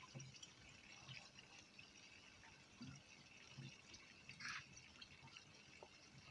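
Faint pond water trickling and dripping, with a brief small splash about four and a half seconds in.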